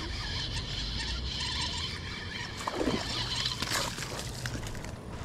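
A hooked fish is reeled in to the bank on a spinning rod and splashes and thrashes at the water's surface in the shallows. The loudest splash comes a little past the middle.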